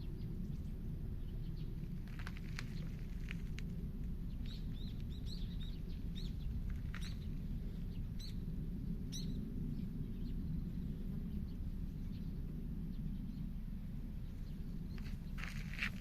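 Small birds chirping faintly in short high notes, in clusters a few seconds in and again near the middle, over a steady low rumble.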